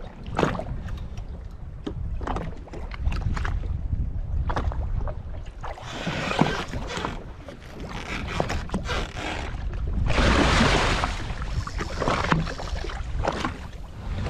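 Wind buffeting the microphone and water slapping against a jet ski's hull, with scattered short knocks and a louder rush of noise about ten seconds in that lasts over a second.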